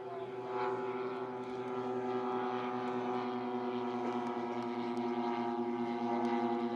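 Twin engines of a giant-scale radio-controlled Grumman S-2 Tracker model running at steady power in flight, a buzzing engine hum. It swells about half a second in and dips slightly in pitch near the end as the plane passes.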